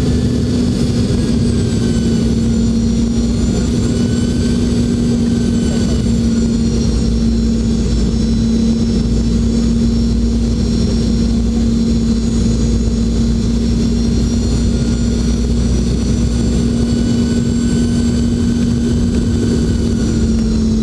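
Cabin noise of a Boeing 717-200 on final approach, heard beside its rear-mounted Rolls-Royce BR715 turbofan: a loud, steady drone with a deep rumble and a low hum. Over it runs a high fan whine that drifts slowly up and down in pitch as the engine thrust is adjusted.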